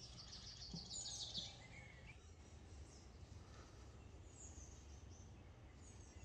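Faint birdsong: a quick run of high chirps about a second in, then a few scattered high calls. A low steady rumble sits beneath.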